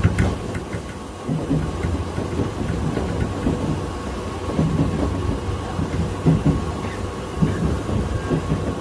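Tobu 8000-series electric train (set 8111) running along the track, heard from inside its cab: a steady rumble of wheels on rail with scattered knocks and rattles.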